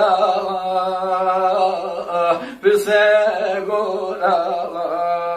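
A man singing a Kurdish folk song unaccompanied, holding long notes with wavering ornaments, with a short break for breath about two and a half seconds in.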